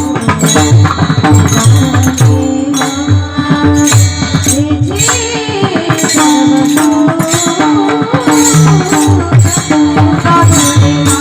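Devotional bhajan music between sung lines: tabla-style hand-drum strokes and jingling small cymbals under a held drone and a wavering melody.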